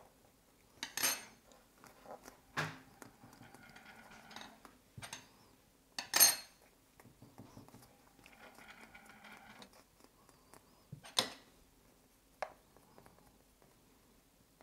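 Small cake-decorating tools clinking against the work surface as they are picked up and set down: a few sharp clinks, the loudest about a second in and about six seconds in, ringing briefly, between quieter sounds of hands handling the sugar paste.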